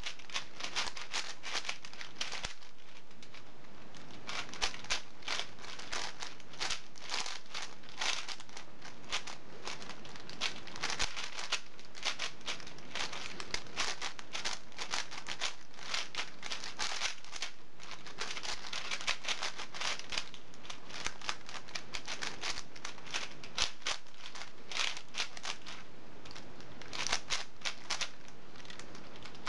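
Two 4x4 speed cubes being turned fast by hand: a dense, irregular clatter of plastic layer-turn clicks, several a second.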